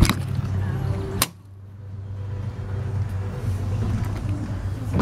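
Motorhome entry door being opened: a sharp latch click, then a louder clunk about a second in, over a steady low hum. The hum drops away abruptly after the clunk and slowly builds back.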